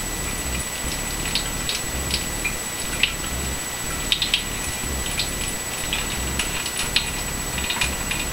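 Tap water running in a thin stream over fingers and a small object held under the faucet, with irregular small splashes and drips.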